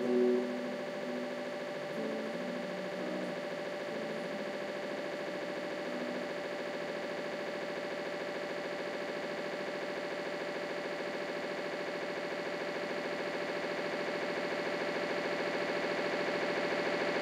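Ambient electronic music: a dense drone of many held tones, with a few low notes shifting in the first seconds, then slowly swelling louder toward the end.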